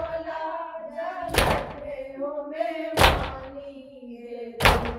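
Matam: hands beating on chests in a slow steady rhythm, three heavy slaps about a second and a half apart. Between the slaps a voice chants a nauha lament in long held notes.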